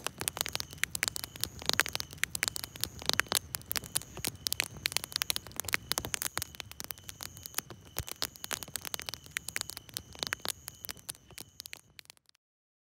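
Dense, irregular crackling and clicking over a hiss, with a faint steady high tone beneath. It cuts off suddenly near the end.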